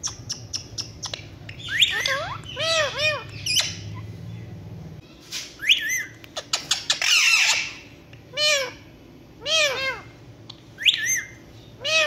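Indian ringneck parakeets calling: short squawks that rise and fall in pitch, coming in groups of two or three, with one harsher, rasping call a little past the middle.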